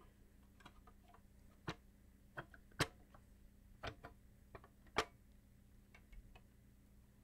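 Quiet, scattered clicks and taps of circuit boards and plastic parts of a Bose Acoustic Wave CD3000 being handled during reassembly. The sharpest clicks come a little under three seconds in and at about five seconds.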